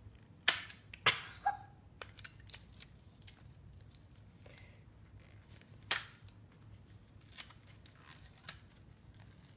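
Small plastic toy packaging handled in the hands: scattered sharp clicks and crinkles at an uneven pace, the loudest about half a second and a second in and again about six seconds in.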